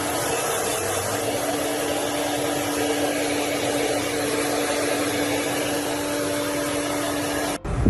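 A small electric appliance motor running steadily with rushing air and a steady hum, such as a blow dryer or vacuum, cutting off abruptly near the end.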